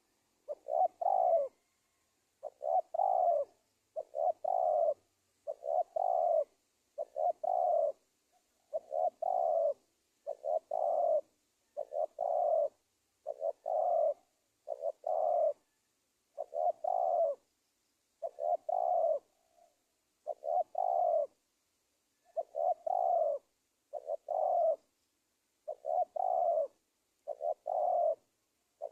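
Spotted dove (tekukur) cooing its lure call: short, deep coo phrases repeated steadily about every one and a half seconds.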